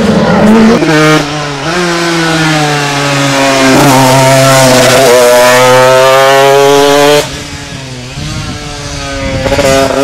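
A Donaska 1000 racing sidecar's engine briefly, then an Aprilia 125 racing motorcycle engine at full throttle, revving high with its pitch rising gear after gear. It drops away suddenly about seven seconds in and climbs again near the end.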